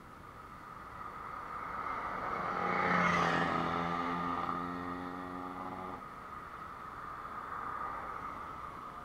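A motor vehicle passing close by on the road: its engine sound swells to a peak about three seconds in, holds a steady hum for a few seconds, then fades away.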